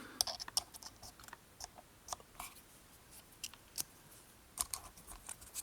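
Irregular small clicks and taps from a Torx screwdriver bit set being handled.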